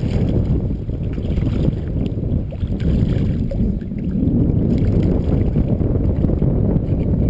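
Wind buffeting the camera microphone, a steady low rumble, with a few faint splashes from a hooked largemouth bass thrashing in the shallows.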